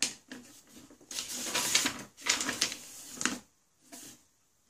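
Paper rustling and crinkling as the pages of a printed instruction manual are handled and turned, in several irregular bursts that die away near the end.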